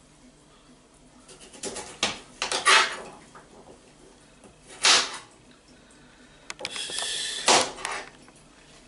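Kitchen knife chopping carrots on a plastic chopping board: a few clusters of sharp knocks, then about a second of continuous scraping noise ending in a hard knock.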